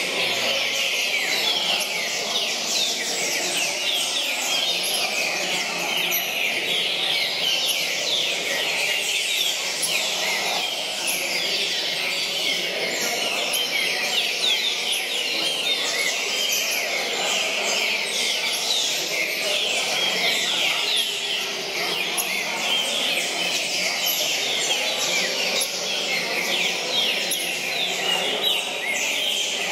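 Many caged green-winged saltators (trinca-ferro) singing at once, a dense, unbroken chorus of loud, overlapping whistled phrases, many of them quick falling notes.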